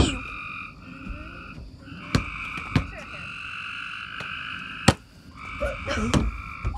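A steady night chorus of frogs calling in two high, even bands, dropping out briefly a few times. Several sharp knocks of a volleyball being hit cut through it, the loudest about five seconds in.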